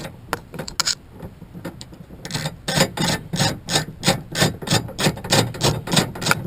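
Ratchet wrench working the outer door handle's retaining bolt loose inside a car door: a few scattered clicks, then from about two seconds in a steady run of about three ratchet clicks a second.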